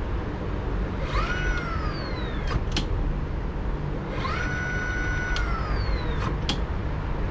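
Brushless electric scooter hub motor spun up under throttle on a newly installed controller, twice: each time its whine rises quickly, holds steady, then winds down as the throttle is let go. A few sharp clicks come near the end of each run-down.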